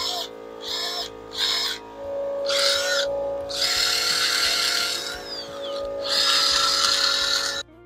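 Cordless drill spinning a wire brush against rusty steel to scour off rust, in about six short bursts that start and stop, over background music. The sound cuts off suddenly near the end.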